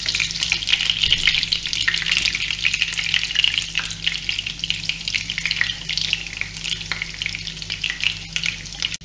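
Chopped-chicken fritters sizzling and crackling steadily in hot oil in a frying pan. They are turned with a silicone spatula and a fork, which add scattered clicks and scrapes against the pan.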